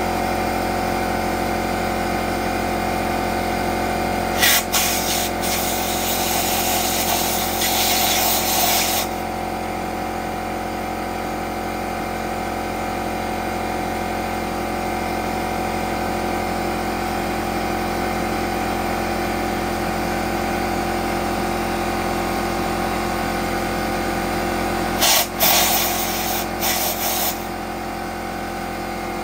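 Porter-Cable pancake air compressor running steadily while an air blowgun blows dust out of drilled holes in concrete. The blowgun gives a sharp hissing blast about four seconds in that runs on for several seconds, then a few short blasts near the end. This is the cleaning step that clears the holes before epoxy goes in.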